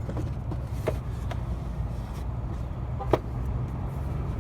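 Plastic air-intake parts in a car's engine bay being worked loose by hand, with a few sharp plastic clicks, the loudest about three seconds in, over a steady low rumble.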